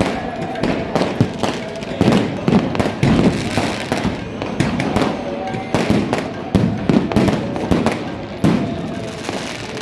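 Firecrackers and fireworks going off without a break: a dense run of sharp bangs and crackling pops, several a second, with no pause.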